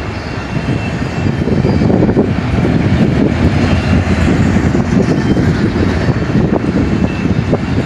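Double-stack container well cars of a fast freight train rolling past: a loud, steady rumble of steel wheels on the rails.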